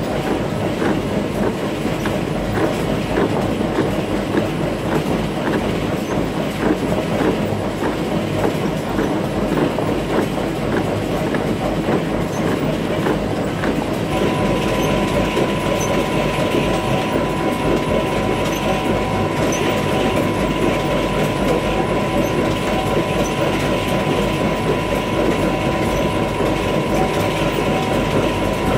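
Newtec Celox-P-UHD optical potato sorting machine running, with small potatoes clattering off its conveyor into a steel hopper over a steady mechanical rumble. A steady high whine joins about halfway through.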